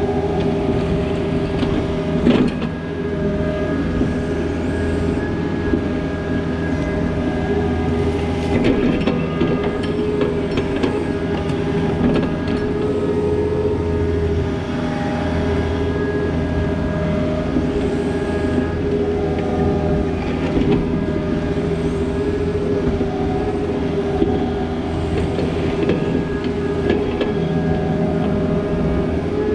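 Takeuchi TB260 mini excavator working: its diesel engine runs steadily under load with a steady hydraulic whine, and a few sharp metal clanks stand out.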